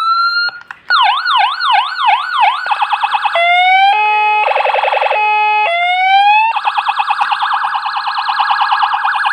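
CJB200HS electronic siren running its tone patterns under test after repair. A rising wail ends, then a fast up-and-down yelp, rapid pulsing, a low-high alternating two-tone and another rise. It ends on a rapid pulsing warble that lasts about three seconds.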